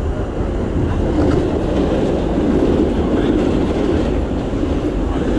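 Steady running noise of a New York City subway train at speed, heard from inside the car, swelling for a few seconds in the middle as another subway train passes close alongside.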